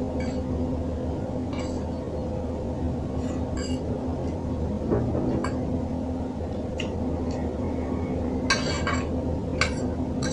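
Metal fork clinking and scraping on a ceramic plate as noodles are scooped up: scattered sharp clinks about once a second, the loudest about eight and a half seconds in, over a steady low hum.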